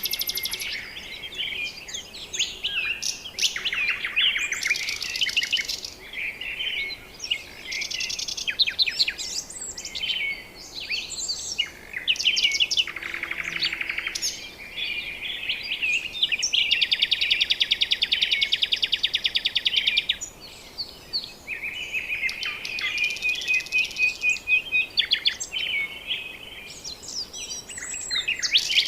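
Several birds calling at once: high chirps and whistles mixed with fast rattling trills, the longest trill lasting a few seconds just past the middle.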